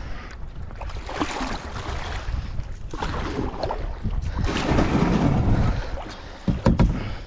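Wind buffeting the microphone over water sloshing around a kayak, swelling and easing every second or two, with a few sharp knocks near the end.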